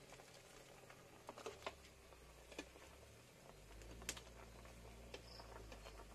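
A handful of faint, scattered clicks and taps of a metal ladle knocking against a pot of simmering chicken soup while stirring, the sharpest about four seconds in.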